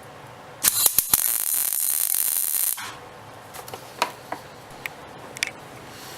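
A few sharp clicks, then a loud steady hiss lasting about two seconds that cuts off abruptly. After it come scattered light clicks.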